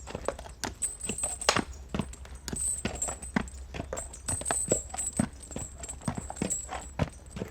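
Horse hooves clip-clopping at a walk as it pulls a carriage, several irregular hoof strikes a second over a steady low rumble, with a high jingling that comes and goes.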